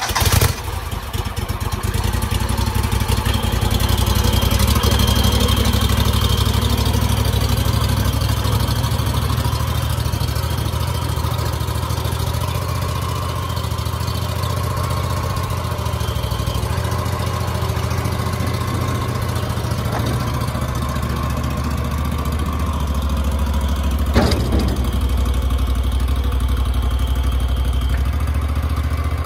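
Small Bandit stump grinder's engine running steadily just after starting, while the machine is driven down off the trailer. A single sharp knock sounds near the end.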